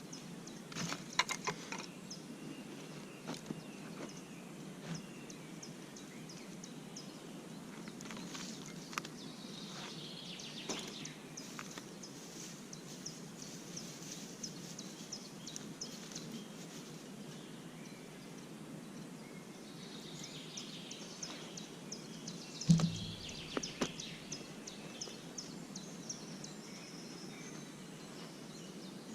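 Woodland ambience: birds chirping and calling, with runs of rapid high chirps, over a steady low hiss. A few scattered clicks, and one louder knock about three-quarters of the way through.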